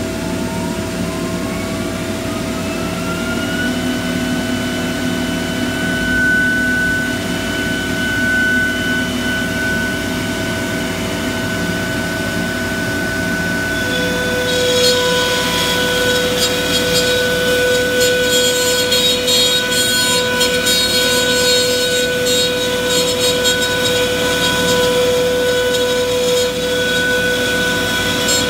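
Techno CNC router spindle spinning up with a rising whine over about four seconds, then running at a steady pitch over the steady drone of the vacuum hold-down pump and dust collector. About halfway through, the router bit starts cutting into the plywood sheet, adding a harsh, rasping hiss.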